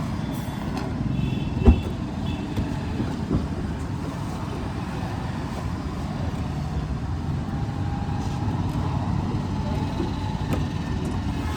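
Steady low vehicle rumble, with a sharp knock about one and a half seconds in and a smaller one a couple of seconds later.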